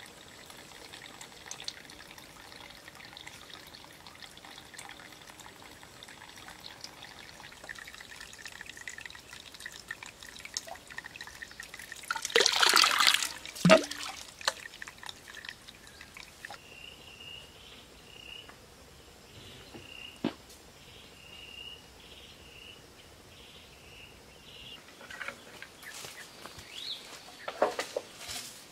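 Water trickling and dribbling from cut bamboo spouts, a thin stream falling from one bamboo pipe into the next. About twelve seconds in there is a brief louder rushing burst with a sharp click just after. Later comes a run of short high chirps, about one a second.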